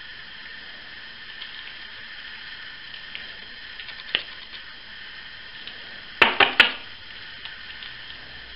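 Gloved hands handling a thin plastic sheet over a steady faint hiss: a single sharp click about four seconds in, then a quick run of three sharp clicks a little after six seconds.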